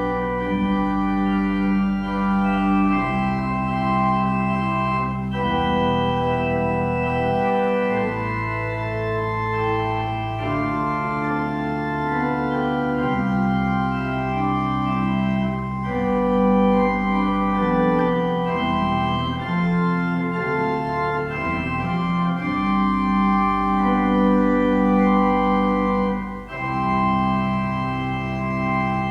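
Organ playing slow, sustained chords over a moving bass line, the chords changing every second or two.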